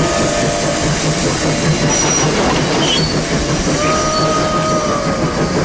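Train running on the rails, a loud steady rattle and clatter with an even rhythm. A drawn-out tone sounds over it from about four seconds in.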